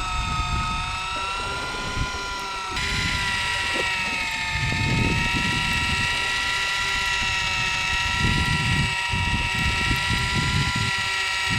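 Electric fishing reel winding line in from deep water, a steady motor whine made of several tones over low wind and boat rumble; the whine gets louder and gains higher tones about three seconds in. It is hauling a hooked rockfish up from several hundred feet down.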